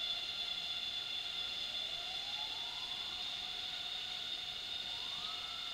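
Rainforest ambience: a steady chorus of high-pitched insect drones, with a slow rising tone about two seconds in and a shorter rising tone near the end.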